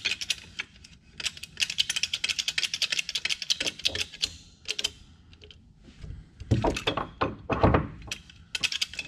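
Steel hydraulic bottle jack being worked by hand under an aircraft nose gear strut: a quick run of light metallic clicks and rattles, then a few heavier knocks about two-thirds through as the steel handle is fitted into the jack's socket.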